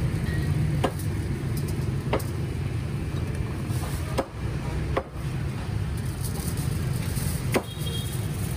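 A motor vehicle's engine running steadily close by, a low rumble, with five sharp knocks spread through it from a cleaver and chopped roast pork being handled on aluminium foil.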